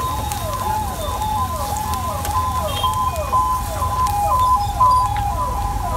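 Onions sizzling as they fry in browned butter in a large wok over a burner, over a low rumble. An electronic siren sounds through it in quick falling sweeps, about three a second.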